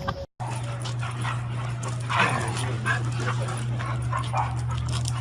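A dog whimpering and yipping in short bursts, over a steady low hum.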